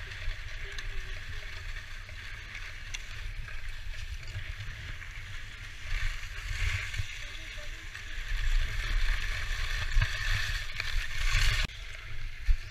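Skis sliding and scraping over packed snow during a downhill run, with a low rumble on the microphone. The scraping hiss grows louder in the second half and cuts off sharply near the end.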